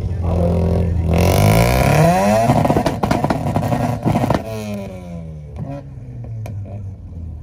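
Tuned car engine revved up hard and held on a two-step limiter, crackling and popping for about two seconds, then the revs drop back to idle.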